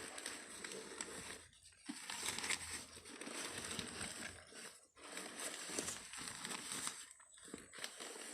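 Packaging crinkling and rustling as it is handled and unwrapped, in stretches broken by short pauses about two and five seconds in.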